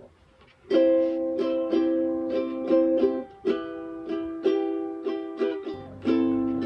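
Acoustic stringed instrument playing strummed chords as a song intro, starting under a second in and striking about two to three chords a second, each ringing and fading before the next.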